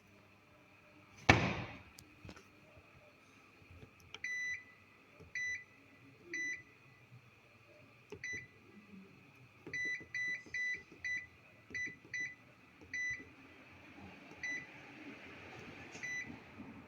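One loud thump about a second in, then a dozen or so short electronic beeps from the IPSO washing machine's control panel, spaced irregularly.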